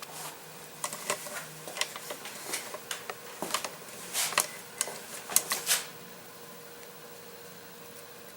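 Spark plug being gapped with a metal gap gauge: a run of light, irregular metal clicks and taps for about five seconds, starting about a second in, as the electrode gap is set to 0.052 inch.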